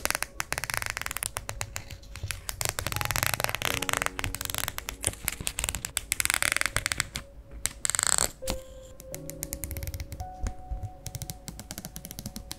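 Steel scissors cutting through a strip of clear PET tape, in several long snips with crisp clicks and plastic crackle, over soft background music.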